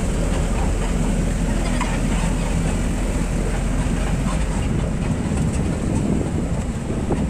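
Steady rumble of a moving vehicle's engine and road noise, heard from aboard the vehicle.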